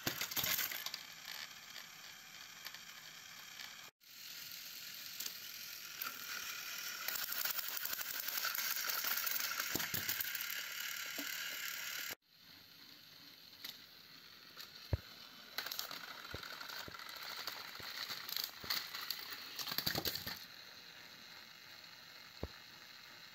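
Small geared motors of battery-powered toy trains whirring steadily as they run on plastic track, with scattered plastic clicks and clatters. The whirring is loudest in the middle and breaks off abruptly twice.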